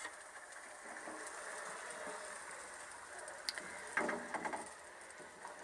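Masoor dal simmering in an uncovered pot: a faint, steady bubbling, with a short clatter of clicks about four seconds in.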